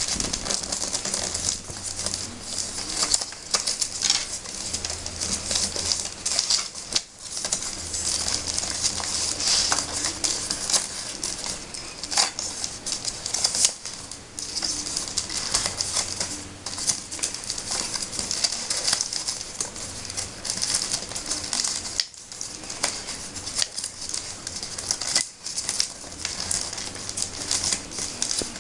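Rolled newspaper tubes being woven by hand, rustling and clicking against each other and against the woven paper base: a steady scratchy rustle with many small clicks.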